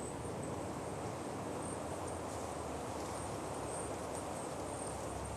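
Steady outdoor ambience with insects trilling high and on and off over a rushing background noise.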